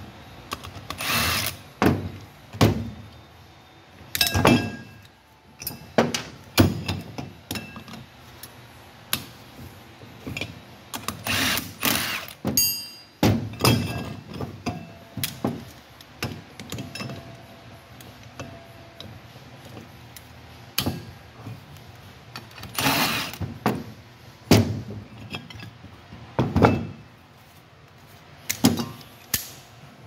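Irregular knocks and metal clanks of a mower wheel hub and its studs and lug nuts being handled on a workbench, with a few bursts about a second long from a cordless power tool as the old wheel studs are taken out.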